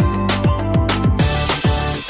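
Upbeat electronic background music with a steady kick-drum beat and sustained synth notes.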